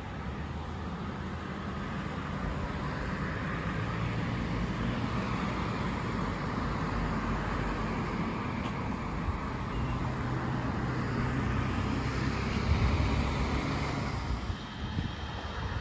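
Road traffic noise: a vehicle passing on the street, a steady rumble and hiss that slowly builds, then drops away near the end.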